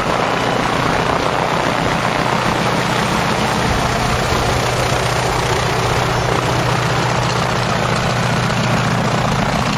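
A light aircraft's piston engine and propeller running steadily at constant power, with a dense rush of wind noise over the top.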